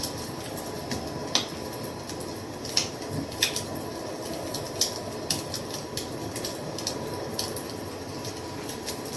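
Wood fire crackling: irregular sharp pops and snaps, a few of them louder, over a steady low rushing hiss.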